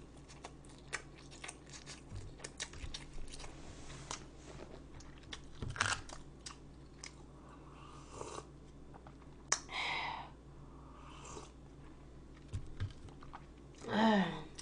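Close-miked chewing and eating sounds: soft crunches, smacks and small clicks of food being bitten and chewed, with a brief hum-like vocal sound near the end.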